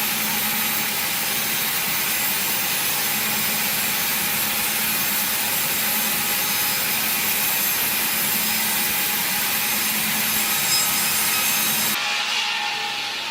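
Machine saw cutting steadily through wood, a continuous rasping whine over a low hum; the sound changes abruptly about a second before the end, turning thinner.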